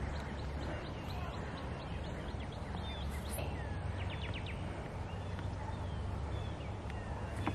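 Open-air ambience: birds chirping and calling faintly, with a cluster of short chirps a few seconds in, over a steady low rumble.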